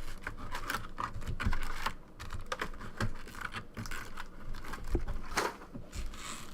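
Small clicks, taps and brief crinkling rustles of a sealed trading-card box being opened and its card packs handled, with one longer rustle about five seconds in.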